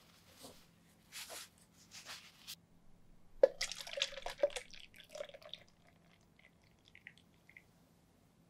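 Milk-and-cream pudding mixture poured from a glass bowl through a fine-mesh strainer into a plastic measuring jug. The splashing starts about three and a half seconds in, then thins to a few drips near the end. A few short noises come before it.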